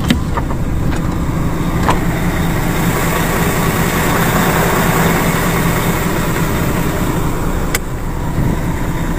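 Lorry engine idling steadily, with a few sharp clicks over it.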